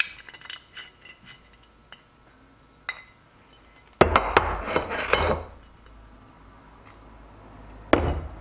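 Aluminum injection mold for soft-plastic baits being cracked open and handled. Light metallic clinks and ticks come first, then a clattering burst about four seconds in, and a sharp clack near the end as a mold half is set down on the workbench.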